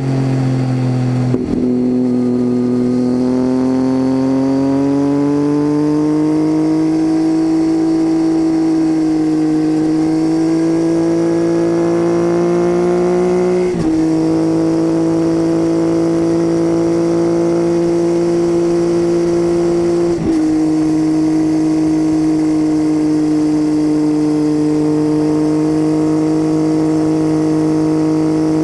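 Triumph Tiger 800's three-cylinder engine through an unbaffled titanium Leo Vince exhaust, heard close from under the seat. The engine pulls with revs climbing gradually over the first dozen seconds, then drones steadily. Two quick gear changes, each a brief dip, come about 14 and 20 seconds in.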